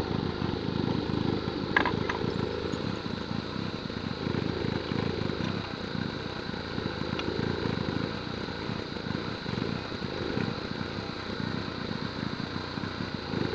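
A motor running steadily, with one sharp click a little under two seconds in.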